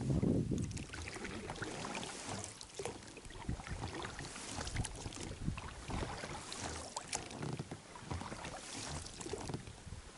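Water splashing and dripping as a small boat is propelled by hand along a river, with irregular small clicks and knocks and no steady rhythm.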